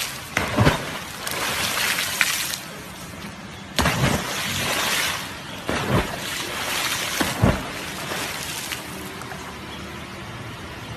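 Water splashing and rushing against the hull of a small boat moving through the water, swelling and easing, with a few sharp knocks; it settles to a quieter steady wash near the end.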